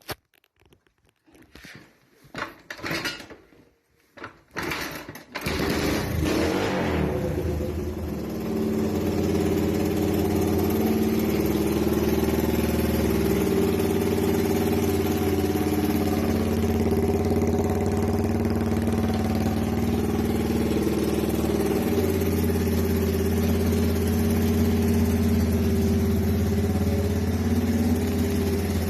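1979 Honda CT125's single-cylinder four-stroke engine being started: a few short bursts, then it catches about five seconds in and idles steadily.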